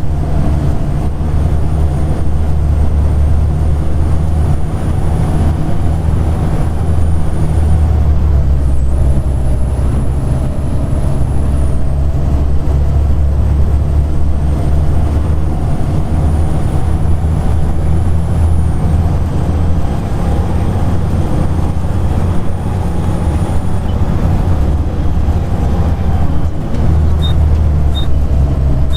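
Volvo B7TL double-decker bus under way, heard from inside: a steady low engine drone with a thin high-pitched whine, the whine that gives the bus its 'loud hoover' name. The whine climbs slowly and falls away four times as the bus pulls away and eases off. Two short high pips sound near the end.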